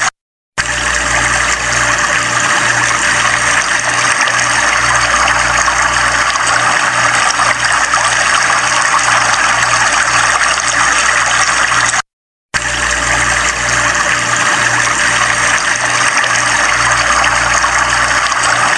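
Loud, steady rush of a swollen, muddy river in flood, the water churning over a row of concrete blocks. The sound cuts out briefly twice, at the very start and about twelve seconds in.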